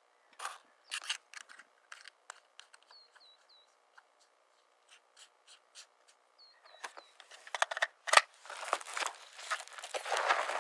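Scattered light clicks and handling noise, then from about seven seconds in a dense crunching that sounds like footsteps on dry ground.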